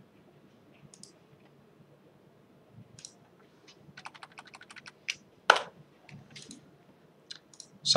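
Computer keyboard keystrokes while editing text: scattered single taps, then a quick run of taps about four seconds in, one louder tap about five and a half seconds in, and a few more near the end.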